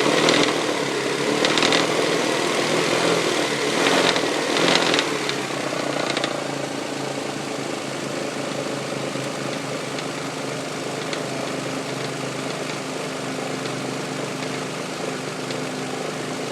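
1999 Toyota Sienna's 1MZ-FE V6 engine running at idle. There are about five short, louder bursts in the first six seconds, then a steady idle. The engine has a knocking or tapping noise that the owner says sounds like something hitting the valve cover.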